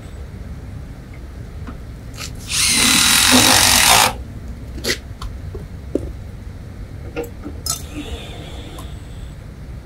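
A power drill runs in one burst of about a second and a half, with a faint whine over it, among scattered light clicks and knocks from handling tools and parts.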